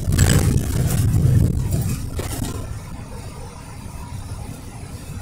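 Car driving on a wet highway, heard from inside the cabin: steady engine and tyre rumble, louder for the first couple of seconds. A windshield wiper swishes across the glass near the start and again about two seconds in.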